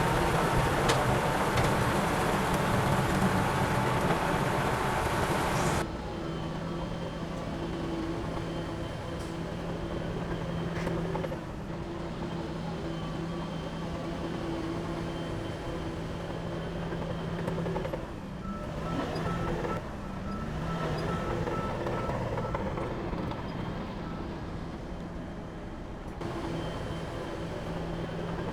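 Diesel engines of heavy earthmoving machinery running, a bulldozer and dump truck at work. The sound changes abruptly about six seconds in to a quieter, steadier engine drone, with a short repeating beep tone later on.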